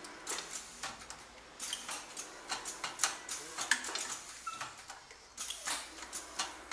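Automatic pad printing machine running: irregular clicks, knocks and clatter from the indexing rotary table and the air-driven print heads, with a couple of short hisses.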